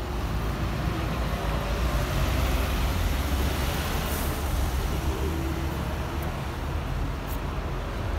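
Steady low rumble of vehicle noise, running on without a break.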